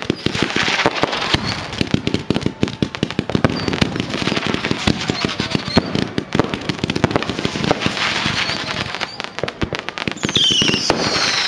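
Fireworks display: a dense, continuous run of rapid bangs and crackles from many shells bursting in quick succession.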